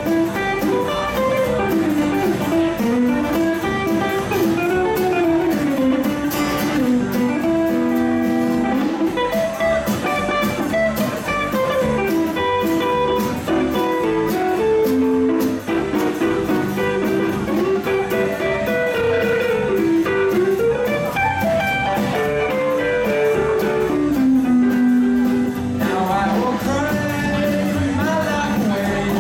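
Live rockabilly band playing: electric guitar taking the lead over acoustic guitar, upright double bass and drums.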